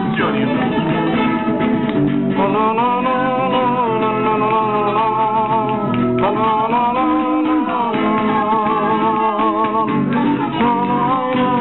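Acoustic guitar strummed while a voice sings long, wavering held notes, with hand claps near the start.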